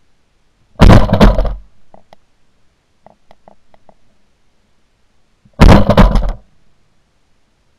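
Two shotgun shots at doves, about five seconds apart, each very loud and trailing off over most of a second. A few faint clicks come between them.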